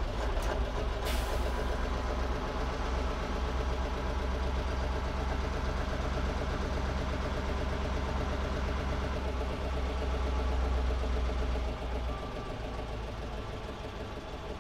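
Dennis RS130 fire engine's engine running as it drives slowly, heard from inside the cab, with a few clicks near the start. The engine note drops about twelve seconds in as the truck slows.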